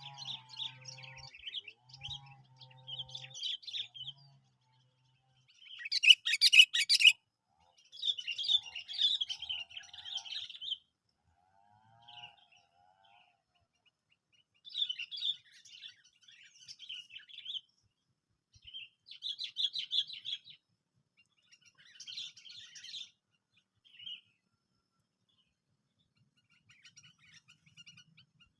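Sooty-headed bulbuls giving bursts of rapid chirping calls, phrase after phrase with short pauses. About six seconds in comes a loud, harsh, rasping burst.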